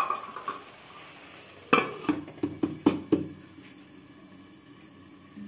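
Metal lid being set on a metal kadhai and settled into place: a quick run of about six metal knocks and clinks with short ringing, about two seconds in.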